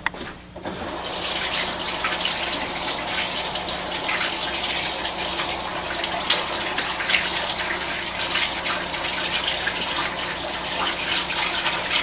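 Tap water running as hands are washed under it, starting about half a second in and then running steadily.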